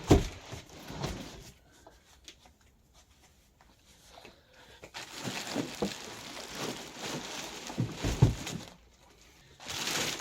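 A cardboard box being flipped over and handled: a loud thump right at the start, then rustling and scraping with a couple of knocks, loudest about eight seconds in.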